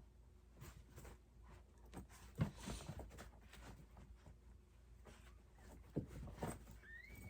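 Faint rustling and a few soft knocks of a mother dog moving about with her newborn puppy, two of the knocks louder, about two and a half and six seconds in. Near the end a newborn puppy gives a short high squeak that rises and falls.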